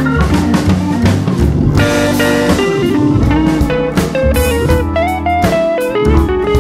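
Background music: an upbeat blues-style instrumental with guitar melody over a steady drum kit beat.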